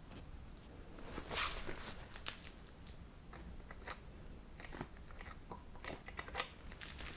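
A Seizmik soft UTV door being handled and held in place, its clear vinyl window and fabric crinkling and rustling, with scattered small clicks. The loudest crinkle comes about a second in.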